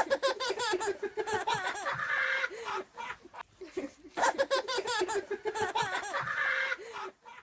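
A baby laughing hard as a dog licks its face, in two long, high-pitched bouts with a short pause about three seconds in.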